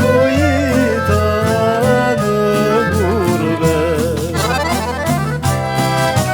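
Albanian folk ensemble playing an instrumental passage: a fast, ornamented melody line over a steady beat.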